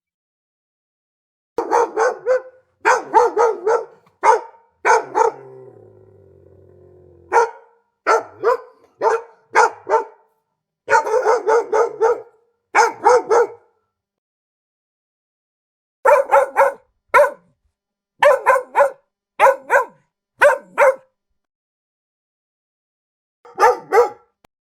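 A dog barking in quick runs of several sharp barks, with silent pauses between the runs. Between two runs, about six seconds in, there is a quieter drawn-out sound that falls in pitch in steps.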